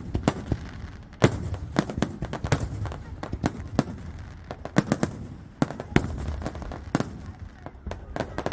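Aerial fireworks bursting, a rapid irregular series of sharp bangs and cracks, several a second, with louder reports about a second in and again near six seconds, over a low rumble of the display.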